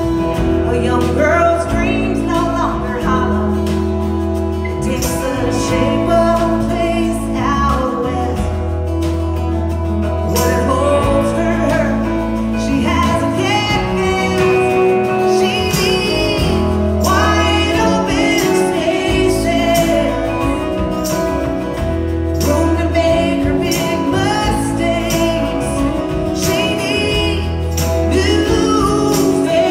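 Live band playing a country song: electric guitars, electric bass and drums under a woman's lead vocal, with a strong bass line moving note to note.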